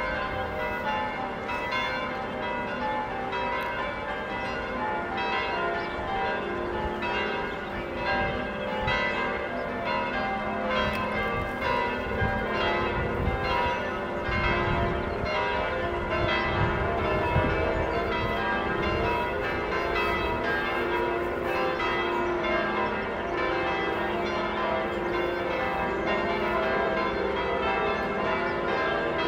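Church bells pealing steadily, many ringing tones overlapping.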